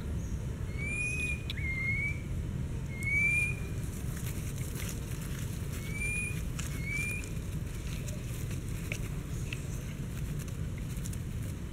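Short whistled animal calls, each note rising and then levelling off, heard about five times and spaced irregularly, over a steady low noise on the microphone. Faint scattered clicks and rustles fall in the middle stretch.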